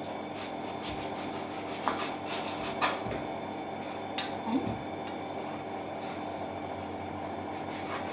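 A kitchen knife cutting a mango on a plastic cutting board, with a few light knocks of the blade on the board, over a steady high-pitched background whine.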